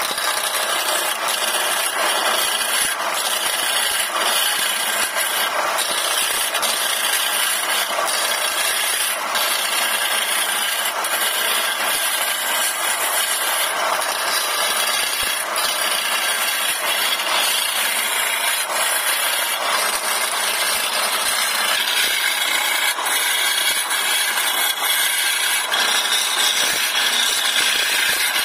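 Wood lathe spinning a thick wooden blank while a hand-held turning chisel cuts into it: a steady scraping hiss of the tool peeling off shavings.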